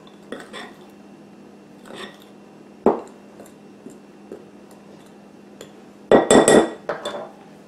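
Pastry blending fork clinking and scraping against a glass mixing bowl as shortening is cut into flour: scattered light clinks, a sharp knock about three seconds in, and a quick run of louder knocks around six seconds in.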